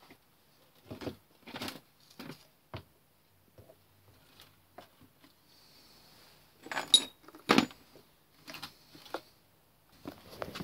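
Small metal tools and parts on a lathe clinking and knocking as they are handled and set down: scattered sharp clicks, with the two loudest knocks about two-thirds of the way in, the first leaving a brief metallic ring.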